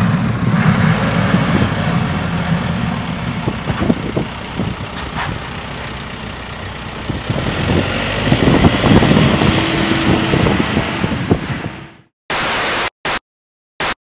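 Diesel engine of a backhoe loader running as it pushes snow with its front plow blade, getting louder in the second half. It cuts off suddenly, followed by a few short bursts of static.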